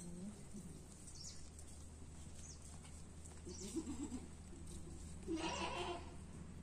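A goat bleating once, a harsh call lasting under a second, about five seconds in, over a faint low steady hum.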